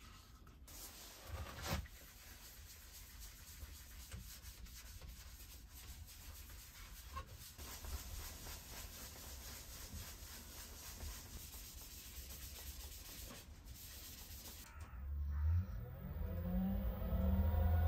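Paper towel rubbing over the painted, lacquered face of a sycamore platter mounted on a wood lathe, a faint steady rubbing. Near the end the lathe starts and spins up, its motor whine rising and growing louder.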